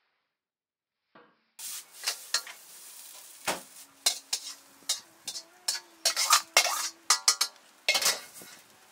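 Metal ladle clanking and scraping in a wok while egg and rice sizzle, starting after about a second and a half of silence. The clanks come in quick irregular strikes, several a second.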